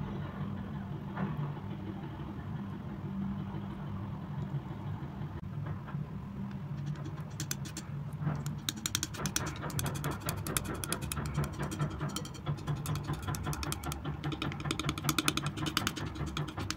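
Palette knife working thick wet acrylic paint on a flat surface: soft scraping at first, then from about seven seconds in a dense run of sticky, wet clicking as the paint is squashed and mixed. A steady low hum runs underneath.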